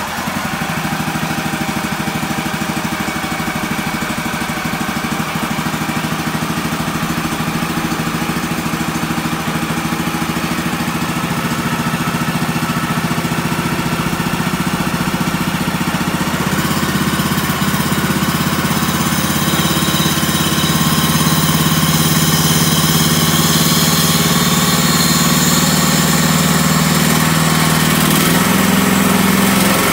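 The gasoline engine of a Woodland Mills HM130MAX portable bandsaw mill running steadily just after starting. Its pitch steps up slightly about halfway through and again near the end.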